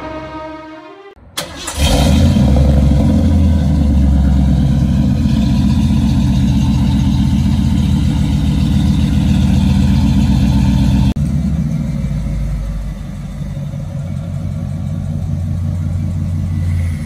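1991 Ford F-150's 351 V8 starting up and running, loud and steady. About eleven seconds in the level drops abruptly and the engine carries on at a quieter, steady idle.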